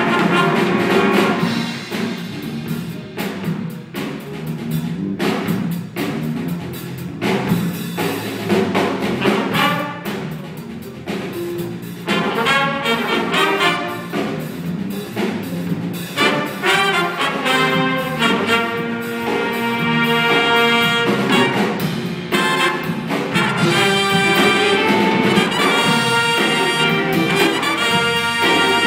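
Live big band playing a jazz tune: drums with a thinner texture in the first half, then the full horn section of trumpets, trombones and saxophones comes in with held brass chords from about halfway, getting louder.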